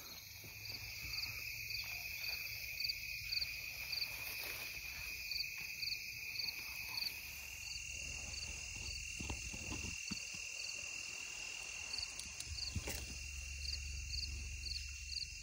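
Insects calling in a steady high trill, with a second chirp pulsing about three times a second over it. A few soft knocks or rustles come about halfway through.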